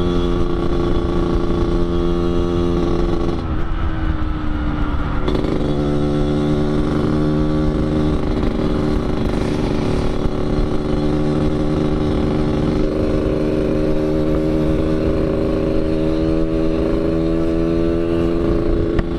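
Yamaha RX-King 135 single-cylinder two-stroke engine running under load through an under-belly 'kolong' expansion exhaust, set up Medan-style for the grumbling 'ngorok' note. About three and a half seconds in the note drops for a gear change and picks up again about two seconds later, then climbs slowly and steadily.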